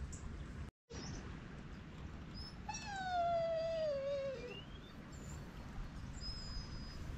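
An animal's single long whining call, about two seconds long, sliding steadily down in pitch, with a few faint, short, high whistles around it.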